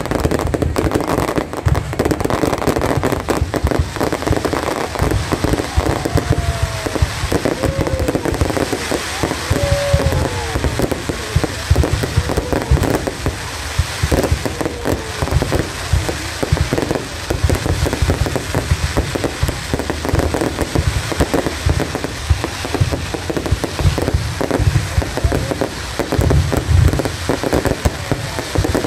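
Aerial fireworks display: a dense, continuous barrage of shell bursts and crackling.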